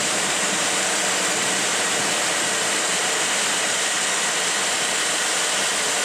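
Steady rushing noise from the engine bay of a car idling with the air conditioning on max, its compressor and cooling fan running during an R134a charge.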